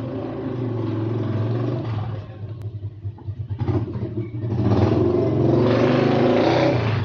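Yamaha R3's parallel-twin engine running through an aftermarket short muffler at a steady low note. It gets clearly louder about four and a half seconds in.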